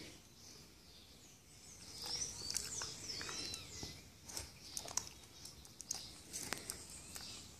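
Small birds chirping and twittering, with quick high gliding calls clustered in the middle, and a few scattered sharp clicks.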